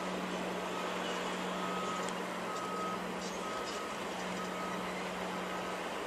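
A vehicle's backup alarm beeps about once a second, each beep a single steady tone, over a steady low hum and general construction-site noise.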